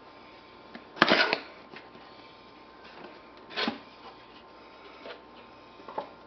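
Nikon D700 cardboard box being opened by hand: a sharp click and a short scrape of cardboard as the lid comes free about a second in, a second cardboard scrape a little before four seconds, then light taps as the inner flaps are handled.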